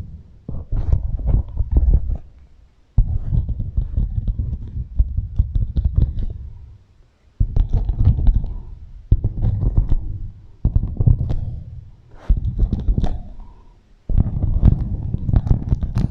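Beeswax wrap crinkled and rubbed close against a microphone, heavily echoed: about seven bouts of crackling, each starting suddenly and fading away.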